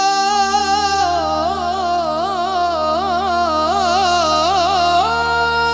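Qawwali-style devotional music: a single held melodic line over a steady low drone. About a second in it breaks into quick ornamented wavering turns, and near the end it settles onto a higher sustained note.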